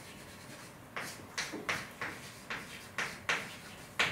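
A computer keyboard being typed on slowly: single sharp keystroke clicks, two to three a second, beginning about a second in.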